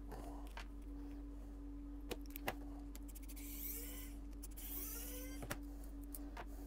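A precision screwdriver backs small screws out of a folding knife, making faint rising squeaks twice around the middle, along with a few light metallic clicks as the parts are handled. A steady low hum runs underneath.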